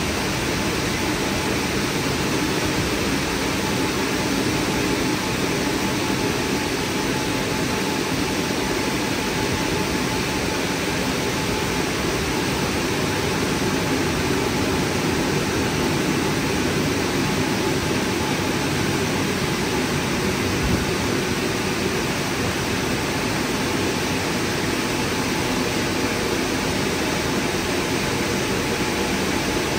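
WashTec SoftCare2 Pro rollover car wash's drying blowers running: a steady, even rush of air with a faint steady whine.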